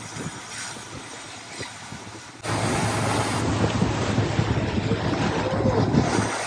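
A pilot boat running close alongside: the steady hum of its engine under the rushing of its bow wave, with wind on the microphone. It gets suddenly much louder about two and a half seconds in.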